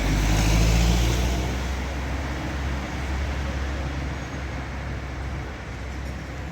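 A motor vehicle's engine rumbles close by, loudest in the first second or so, then eases into steady street traffic noise. The sound cuts off abruptly at the end.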